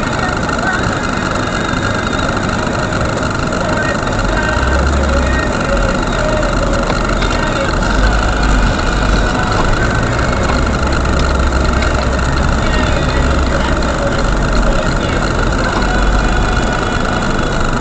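Car interior sound picked up by a dashcam's built-in microphone. The engine is running and the car is stopped, then moving slowly, with a deeper low rumble from about four seconds in.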